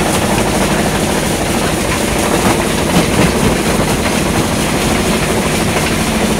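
Iron-ore rock crusher plant running together with the excavator that feeds it: a steady loud mechanical din with a low hum and a few faint knocks.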